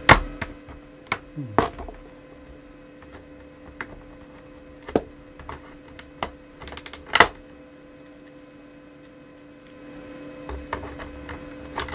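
Sharp plastic clicks and taps from a laptop's case being handled and pried at along the palm-rest edge. The clicks are scattered, with a quick cluster about seven seconds in that is the loudest. A faint steady hum runs underneath.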